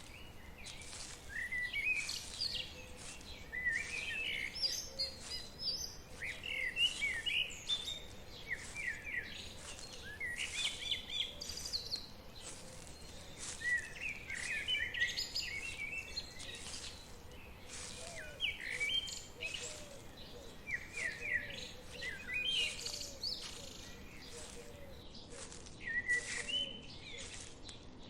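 Songbirds singing in quick chirping phrases that recur every couple of seconds, over a faint steady background of forest ambience.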